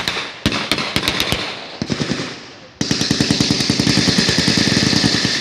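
Blank gunfire from WWII reenactment weapons: several scattered single shots and short bursts, then from just under three seconds in a long, rapid automatic burst of about two and a half seconds, the loudest part.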